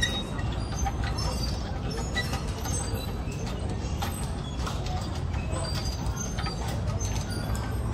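Steady low rumble of distant road traffic, with scattered light clicks and brief high chirps over it.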